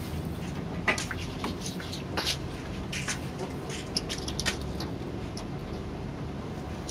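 Scattered short scrapes and light knocks over a steady low hum, from a long pipe being poked along a garden wall to flush out a monitor lizard.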